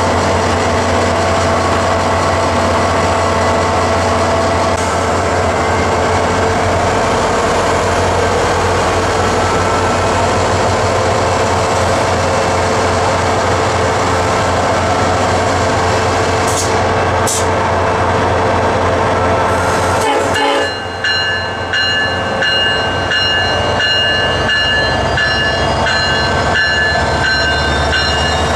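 SunRail MP32PH-Q diesel locomotive idling at the platform, a steady engine hum with a whine over it. About two-thirds of the way through the sound changes and a high ringing tone, pulsing on and off repeatedly, joins the engine; a short hiss comes a few seconds before.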